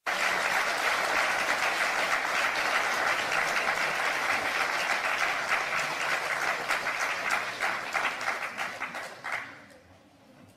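Audience applauding in a hall: dense clapping at first, thinning into scattered claps and dying away about nine and a half seconds in.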